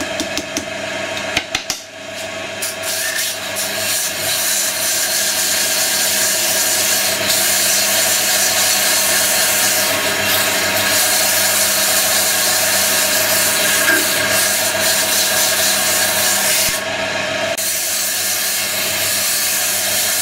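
Wood lathe running while Velcro-backed sandpaper on a steel rod sands the inside of a hollowed wooden tulip: a steady rasping rub over the lathe's hum. A brief drop with a few clicks about two seconds in.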